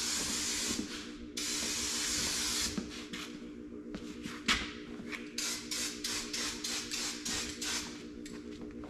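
Aerosol spray-paint can spraying: two long hisses in the first few seconds, then many short, quick spurts. A steady low hum runs underneath, and there is a single sharp knock about four and a half seconds in.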